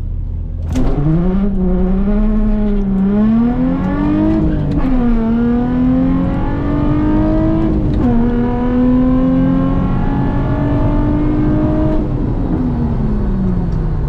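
Nissan 350Z's straight-piped 3.5 V6 at full throttle from a drag-strip launch, heard from inside the cabin. The revs climb with a wavering pitch as the rear tyres spin off the line. They drop at two gear shifts, about four and a half and eight seconds in, then fall away as the throttle lifts near the end.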